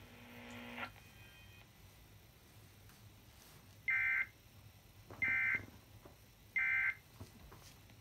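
Emergency Alert System end-of-message (SAME) data tones: three short bursts of warbling digital data, each about a third of a second long and roughly a second apart, starting about 4 s in. They close a National Weather Service severe thunderstorm warning broadcast.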